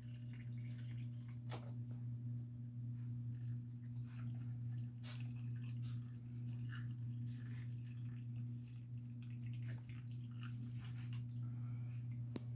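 Pickling brine being ladled into glass jars: faint clinks of the ladle and small trickles and drips of liquid, with a couple of sharper clicks. A steady low hum underlies it.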